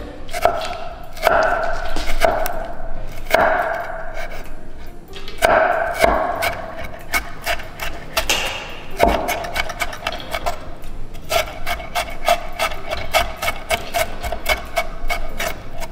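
Chef's knife chopping and mincing a tomato on a wooden cutting board: repeated knocks of the blade on the wood, turning into a quick, even run of chops in the second half.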